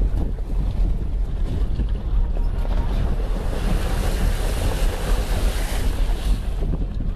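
Strong wind buffeting the camera microphone: a loud, uneven low rumble, with a rushing hiss that swells through the middle.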